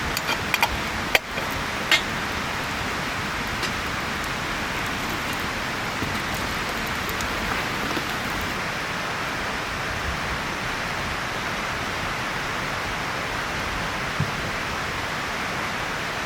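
Steady rushing hiss, with a few sharp clicks in the first two seconds.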